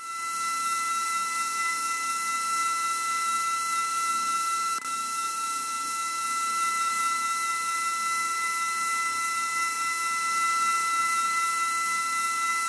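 VOXEL-MAN Dental simulator's synthesized high-speed dental drill running steadily as it cuts a cavity into a virtual molar: a high-pitched whine of several steady tones over a hiss, with a brief dip about five seconds in.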